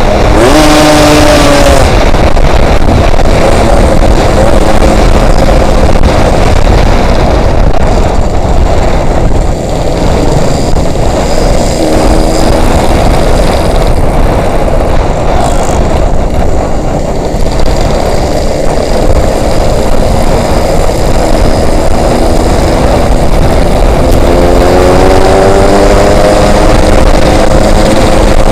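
Yamaha RX-King's single-cylinder two-stroke engine pulling along on the road, under loud wind noise on the microphone. The engine pitch rises as it accelerates right at the start and again near the end.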